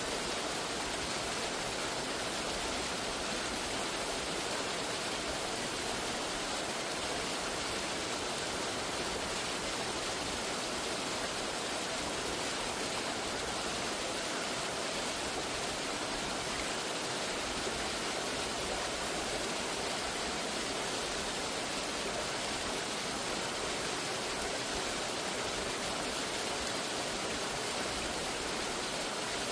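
Rushing water of a waterfall: a steady, even roar of falling and splashing water that does not change.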